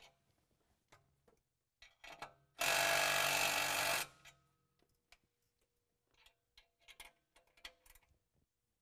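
Electric impact driver with a 9/16 socket running for about a second and a half, driving down a nylock nut on a carriage bolt that pulls the air spring's lower bracket down to the axle. Faint tool clicks and knocks come before and after it.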